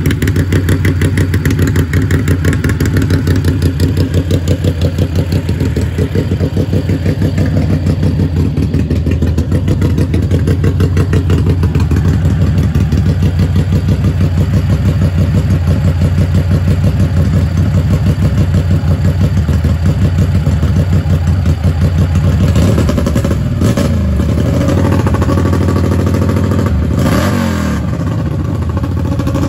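Racing lawn mower's small engine running loud through an open exhaust pipe at a steady pace, then revving up and down several times over the last several seconds.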